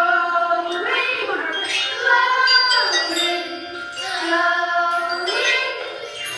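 A song, with a voice singing a melody of long held notes that slide from one pitch to the next.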